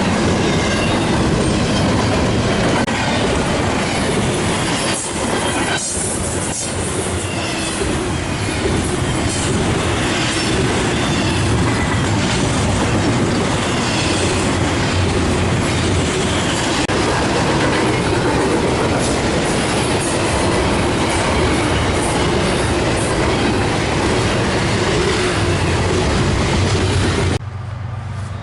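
Railroad cars rolling past, the steel wheels clacking over the rail joints and squealing against the rails. About a second before the end the sound cuts off abruptly, giving way to a quieter steady low hum.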